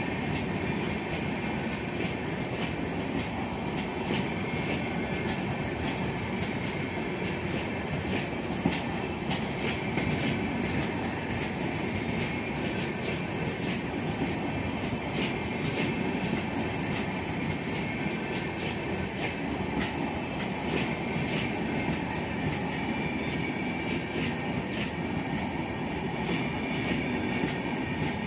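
Indian Railways express passenger coaches rolling past at the platform: a steady rumble of wheels on the rails with frequent sharp clicks, and one louder click about nine seconds in.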